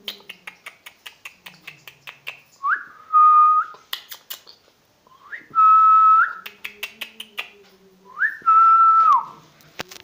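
A man whistling three times, each whistle a quick upward sweep that settles onto a steady held note, the last one sliding down at its end. Faint rapid clicking between the whistles.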